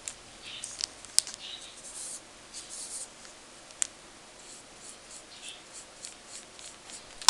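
Paintbrush bristles scrubbing in a pan of watercolour paint and brushing it onto paper: soft, scratchy swishes, with two light ticks, about a second in and near four seconds.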